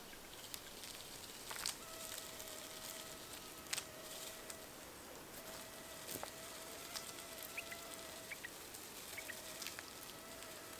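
Faint outdoor field ambience: a thin steady hum that comes and goes, with scattered light clicks and a few short high chirps.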